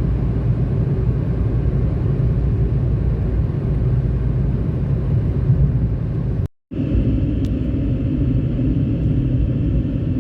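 Steady low rumble of a car's road and engine noise heard from inside the cabin while driving. It drops out abruptly about six and a half seconds in and returns a moment later with a slightly different tone.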